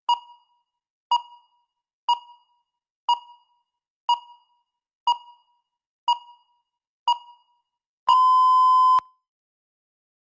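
Electronic countdown-timer beeps: eight short beeps, one a second, then a single longer beep of about a second at the same pitch. The long beep marks the end of the preparation time and the start of the speaking time.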